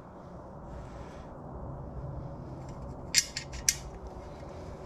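A few sharp, light clicks in quick succession about three seconds in, from a small handguard part being handled in the fingers, over a faint steady low hum.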